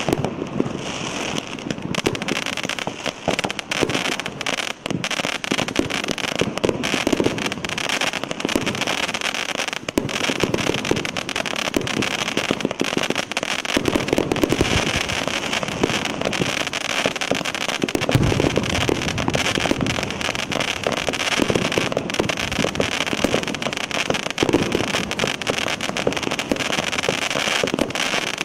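A 49-shot consumer firework cake with 0.4-inch plastic tubes firing shot after shot. The launches and bursts run together in a steady, unbroken barrage of sharp bangs and pops.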